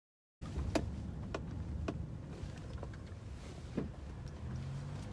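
Smartphone being handled close to its microphone: about four sharp clicks from fingers and grip over a low rumble, cutting in after a brief silence.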